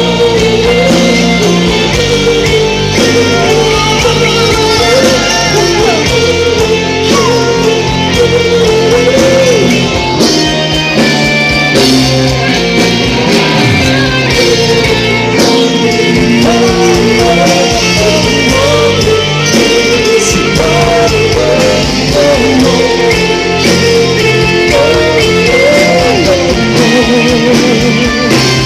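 Loud live rock band playing, with electric guitar and singing over bass and drums, recorded from within the audience.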